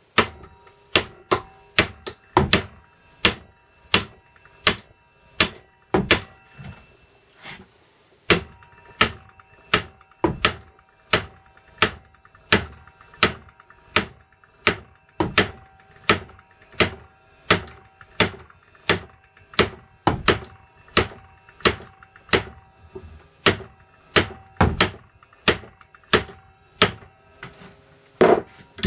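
Copper hammer striking a socket on an old primary pinion used as a drift, steady blows about one and a half a second, driving a sintered bush into a Land Rover Series 3 transfer box front output shaft. Each blow rings briefly off the steel, with one short pause about eight seconds in.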